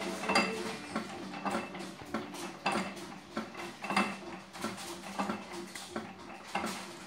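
9 hp Economy single-cylinder hit-and-miss engine running, its flywheels spinning. It makes a rhythmic metallic clatter of clicks and knocks, with a stronger knock about once a second.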